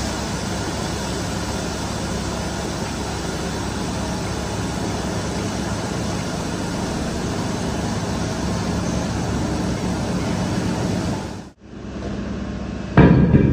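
Steady low mechanical hum like an engine or machine running, under a haze of workshop noise. It briefly drops out near the end, and then a louder rough rumbling starts.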